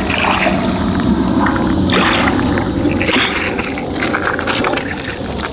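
A big grass carp thrashing and splashing at the water's surface as it is landed in a net, with louder splashes about two and three seconds in.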